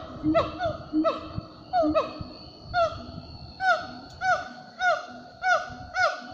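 An animal calling over and over: loud hooting notes, each falling in pitch, about two a second, with lower notes alternating between two pitches between them and a faint steady high buzz behind.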